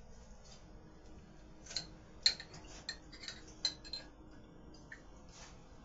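Scattered light clicks and clinks of a utensil against a dish or pot, about half a dozen, the sharpest a little over two seconds in.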